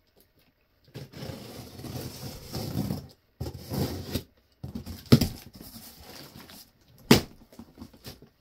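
A parcel of car parts being unboxed: cardboard and packaging rustling and scraping in several stretches, with two sharp knocks about five and seven seconds in.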